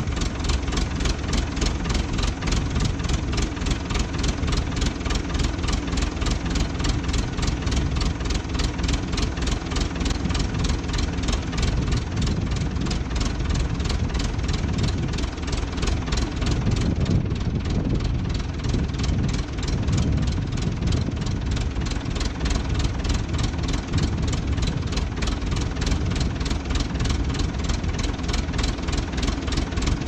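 Old JCB backhoe's diesel engine idling steadily, running again after six and a half years parked.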